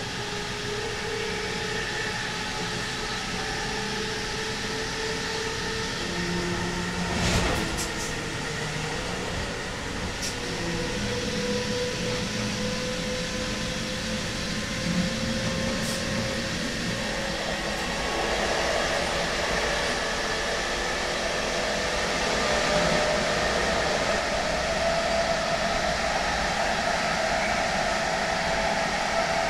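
Traction inverter sound of a DB Class 101 electric locomotive's Adtranz/ABB GTO converter, heard from the adjacent passenger coach over running and track noise. Its whine steps between steady pitches, then rises slowly as the train gathers speed. A short clatter comes about seven seconds in.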